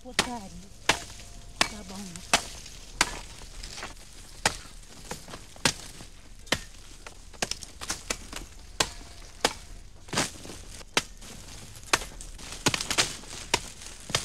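Machetes chopping sugar cane by hand: sharp, irregular strikes about one or two a second, some coming close together.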